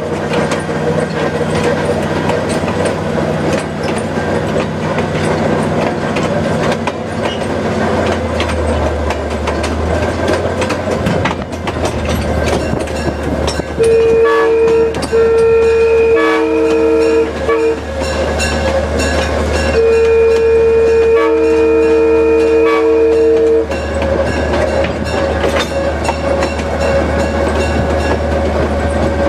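Diesel locomotive engine running steadily as the locomotive moves, heard up close from its front platform; the engine note deepens about 8 seconds in. Between about 14 and 24 seconds in its air horn sounds in several two-note blasts, the last one the longest.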